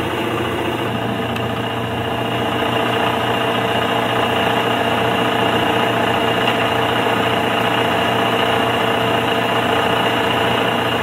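AquaMaax reverse-osmosis watermaker's high-pressure pump running steadily while its system pressure is turned up to find where the pressure relief valve opens. The relief valve currently lets go too low, at about 820 psi instead of the wanted 950. The pump gets slightly louder a couple of seconds in.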